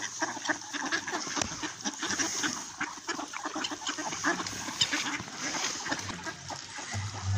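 A flock of mallard ducks quacking and chattering as they feed, over a dense run of many short clicks.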